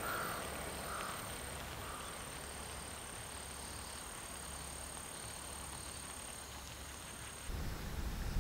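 Quiet rural outdoor ambience: a crow caws about three times in the first two seconds, each fainter than the last, over a steady high-pitched insect buzz. Near the end the sound cuts to low wind buffeting the microphone.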